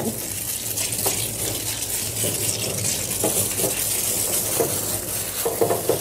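Water spraying from a grooming-tub hand sprayer onto a dog's wet coat: a steady hissing spray.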